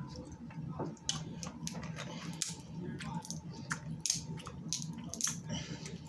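Snow crab legs being cracked and eaten close to the microphone: about ten sharp shell crackles and clicks, scattered irregularly, with wet squishing of crab meat and a steady low hum underneath.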